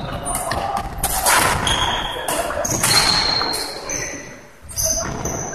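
Badminton play in a large hall: racket strikes on the shuttlecock and footfalls on the wooden floor as short sharp knocks, with high shoe squeaks, all echoing in the hall.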